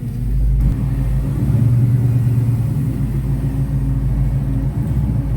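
LS V8 engine's exhaust giving a steady, deep rumble as the car is driven.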